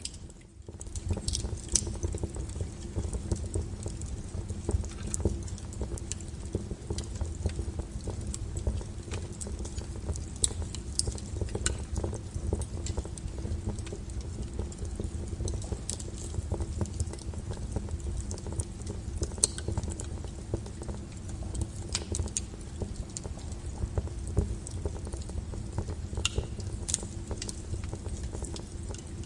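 Wood fire burning: a steady low rumble with irregular sharp crackles and pops, briefly dipping just after the start.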